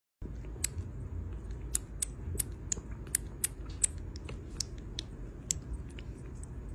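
Kitten suckling from a feeding-bottle teat: sharp wet clicks and smacks, about two or three a second, thinning out near the end, over a low steady hum.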